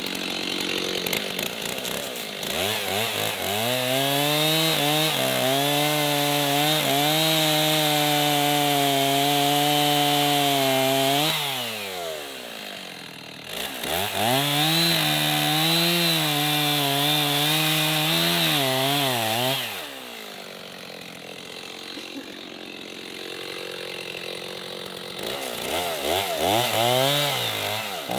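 Stihl MS 210 two-stroke chainsaw revving up and cutting into a tree trunk to make the felling notch, dropping back to idle between cuts. It runs at full throttle for several seconds twice, falls to idle near the middle and again past two-thirds of the way, and revs up once more near the end.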